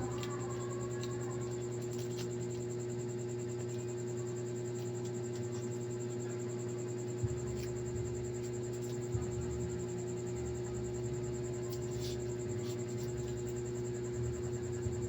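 Kanazawa air cooler running, its fan motor giving a steady hum with a fixed tone, broken only by a few small clicks.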